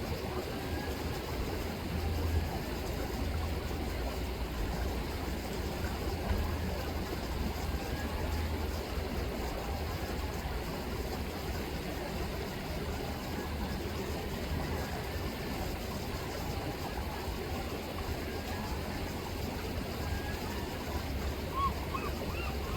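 River water rippling and flowing steadily over a low, steady rumble.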